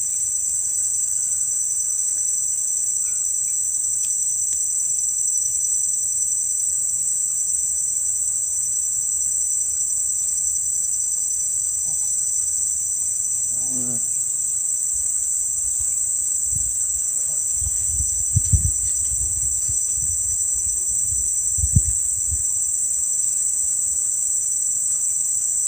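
Steady high-pitched drone of a chorus of insects, unbroken throughout. Low rumbling in the second half, with two sharp thumps.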